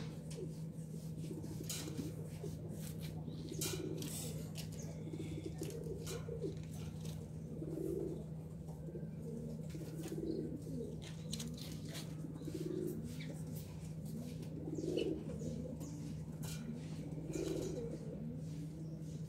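A dove cooing over and over, one low coo about every two seconds, over a steady low hum, with a few short sharp clicks or flutters.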